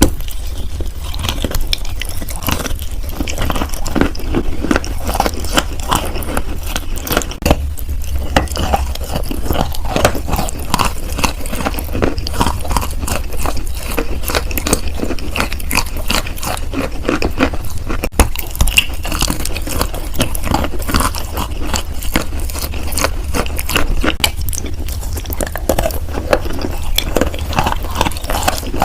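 A person chewing and crunching wet chalk close to the microphone: a dense run of soft crunches and wet clicks, with a couple of sharper snaps, over a steady low rumble.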